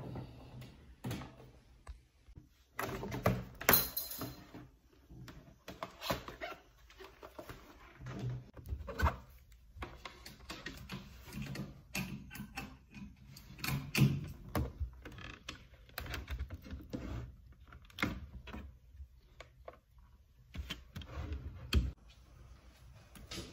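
Irregular knocks, taps and rustles of small objects being handled and set down, with a few sharper clicks about 3 to 4 seconds in, around the middle and near the end.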